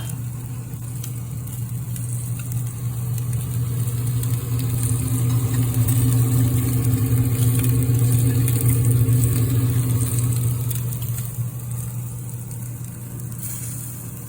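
Steady low mechanical hum, like a motor or engine running, swelling a little in the middle and easing off toward the end.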